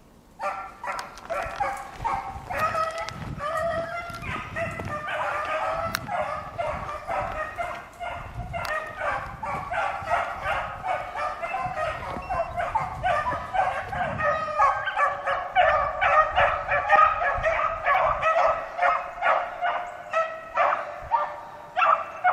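A pack of beagles baying, several voices overlapping in quick repeated bays that start suddenly and keep going. This is the hounds giving tongue while running a rabbit's scent trail.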